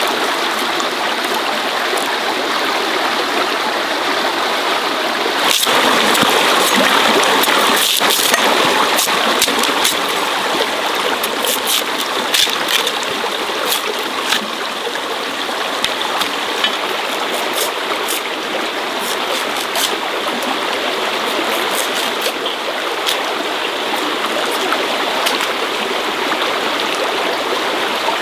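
Running water flowing steadily, louder for a few seconds about a fifth of the way in, with scattered short clicks and knocks over it.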